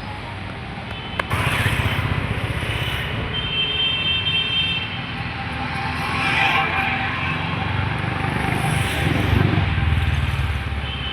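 Motor vehicle running amid street traffic noise, with a sharp click about a second in, after which it grows louder.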